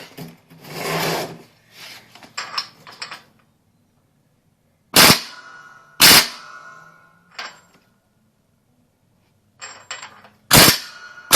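Craftsman 1/2-inch air impact wrench tightening a bolt in short, sharp bursts: one about five seconds in, another about a second later, and two more near the end. Each burst dies away with a metallic ring.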